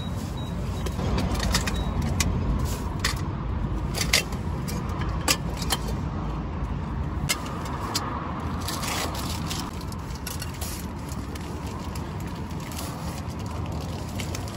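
Metal camping cookware (a pot-and-pan set) clinking and knocking as it is handled, in scattered sharp clicks, the loudest about four and five seconds in. Under it, a steady low rumble of road traffic.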